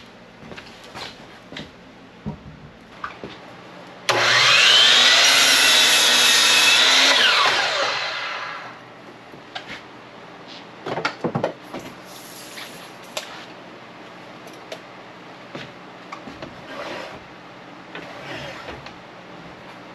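DeWalt sliding miter saw switched on about four seconds in: its motor whine rises to speed, runs for about three seconds, then falls away as the blade brakes to a stop. Scattered knocks and clicks of boards being handled come before and after.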